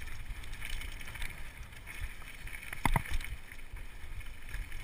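Downhill mountain bike rolling over a rough trail, heard from a chest-mounted camera: steady wind and trail rumble with faint rattling, and two sharp knocks close together about three seconds in.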